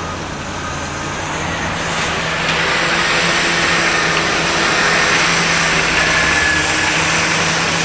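A machine engine running steadily with a low hum and a hissing roar, getting louder about two seconds in.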